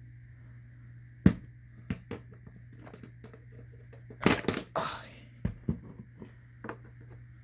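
Handling noise from parts of an Israeli 4A1 gas mask being worked loose and pulled out by hand. There are sharp clicks and knocks, loudest about a second in, then a short scraping, rustling cluster a little past the middle and a few lighter clicks near the end.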